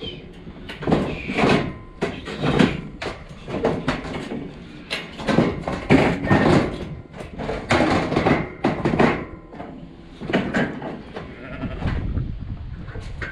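A yard full of Dohne ewes and lambs bleating, many calls one after another and overlapping.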